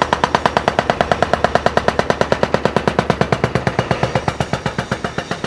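A hydraulic breaker hammer on a Cat excavator pounds a concrete bridge pier. It gives a rapid, steady run of sharp blows at about ten a second as it breaks up the concrete.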